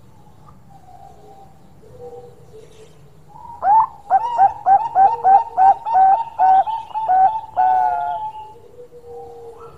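Bangkok-line zebra dove (perkutut Bangkok) singing its long song. A few soft coos come first, then about three and a half seconds in a loud run of about a dozen quick cooing notes, each rising and falling, trailing off near the end.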